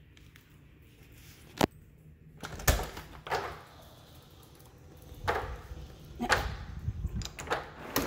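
A sharp click about a second and a half in, then a run of irregular knocks and thumps about a second apart, in a small tiled room.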